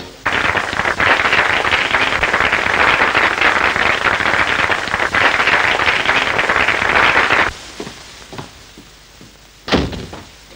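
Audience applauding on an old optical film soundtrack, then stopping abruptly about seven seconds in. A single sharp knock follows near the end.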